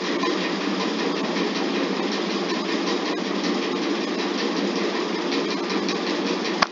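Steady background noise, like distant machinery or traffic, running evenly throughout, with a single sharp click just before the end.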